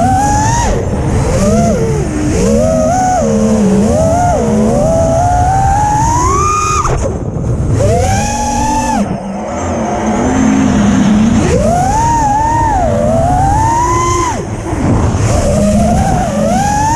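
FPV quadcopter's electric motors whining, the pitch sweeping up and down constantly with the throttle and dropping away briefly twice.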